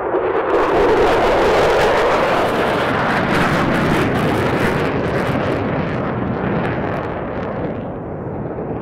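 Roar of an F-15E Strike Eagle's twin jet engines on a low-level pass, with a ragged crackle on top. It is loudest in the first couple of seconds, then slowly fades as the jet moves away.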